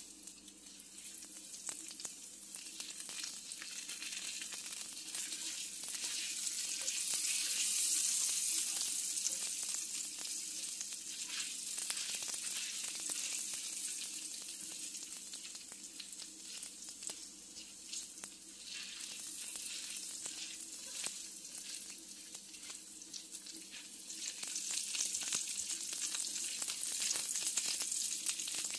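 Chopped garlic sizzling in hot oil, being fried toward brown and crunchy, while a silicone spatula stirs and scrapes it around the pan. The sizzle swells and fades, loudest about eight seconds in and again near the end, with small scraping ticks throughout.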